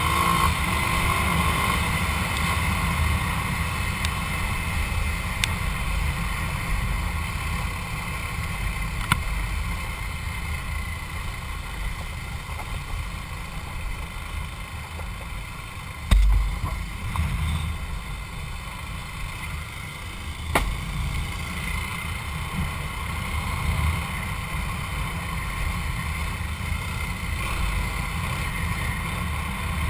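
Motorcycle riding along a dirt road, its engine and wind noise on the mic making a steady rumble. A loud thump comes about sixteen seconds in, with a few sharp clicks scattered through.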